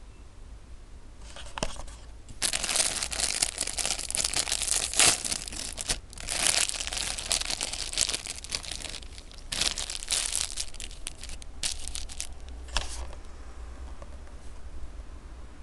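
Clear plastic bread wrapper being torn open and crinkled by hand: dense crackling that starts about a second in and thins to a few scattered crinkles near the end.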